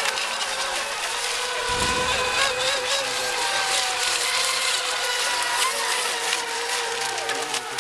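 Several radio-controlled racing boats running flat out together, their motors giving a steady whine of several overlapping pitches over a hiss of water spray. A brief low rumble about two seconds in.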